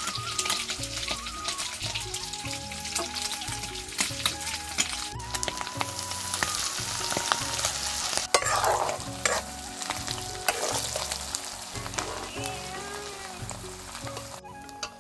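Chicken gizzard pieces sizzling and crackling in hot oil in a black iron kadai, with a steel ladle stirring and scraping them. There is a louder burst of sizzling about eight seconds in, and the sound breaks off briefly a few times.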